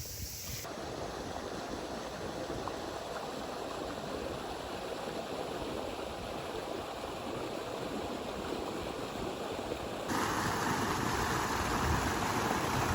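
Steady rushing of a river running high after heavy rain. The sound changes abruptly about half a second in and again near the end, when it grows louder.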